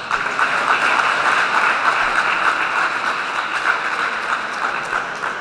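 Audience applauding: dense clapping that comes in suddenly and slowly tapers off near the end.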